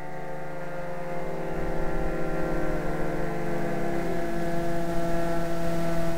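Radio-controlled model airplanes droning overhead: two engine-and-propeller tones, one dropping in pitch a few seconds in. The sound slowly grows louder as a plane comes in low.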